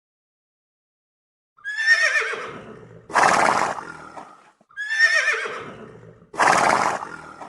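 A horse neighing twice, starting about a second and a half in. Each neigh is a wavering, quavering call that fades out and is followed by a short, harsh, noisy burst.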